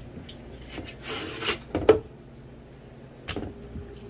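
Kitchen knife working a raw trout fillet on a plastic cutting board: a short scraping swish, a sharp knock a little under two seconds in, and scattered small taps and clicks.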